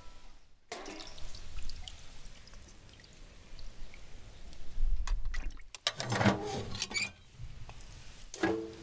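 Brine dripping and splashing back into a pot as raw chickens are lifted out of it, among a few sharp knocks.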